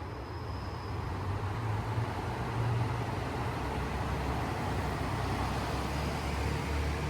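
Low, steady drone of a vehicle engine running, under a rushing noise, growing a little louder about a second and a half in.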